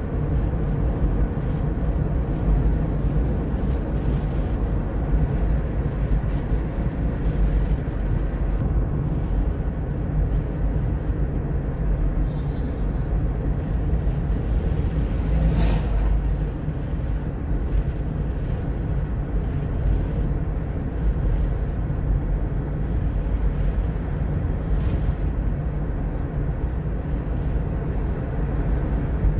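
Steady low rumble of a car's engine and tyres on the road, heard from inside the moving car's cabin. A brief sharp click comes a little past halfway.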